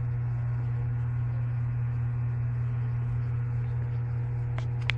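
A steady low hum at an even level, with a few short clicks just before the end.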